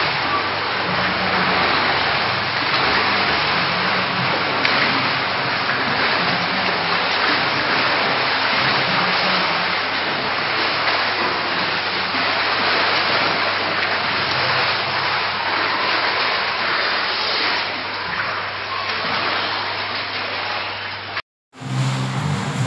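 Water splashing and churning as swimmers kick on their backs in an indoor pool: a steady wash of noise over a low hum. It cuts off abruptly for a moment near the end.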